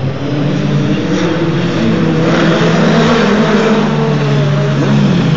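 Open-wheel single-seater racing cars going past on the straight at high revs, several engine notes overlapping. The sound rises in the first second and is loudest around the middle, as a car passes close by.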